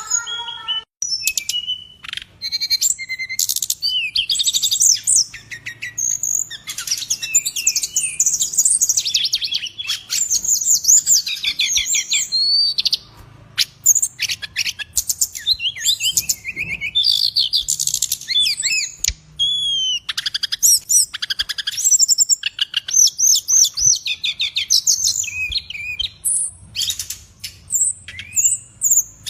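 A songbird in full, vigorous song: a long, varied run of rapid high chirps, trills and whistles, broken by short pauses.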